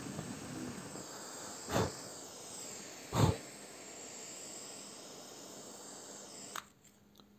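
Butane torch flame hissing steadily as it melts a plastic toy, with two dull thumps about two and three seconds in. The hiss cuts off suddenly with a click near the end as the torch is shut off.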